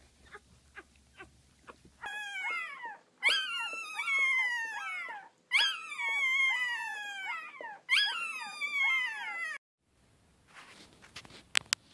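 Litter of newborn puppies whimpering: overlapping high whines, each falling in pitch, from about two seconds in until near the end. Before that, faint quick squeaks about three a second. Near the end, two sharp clicks.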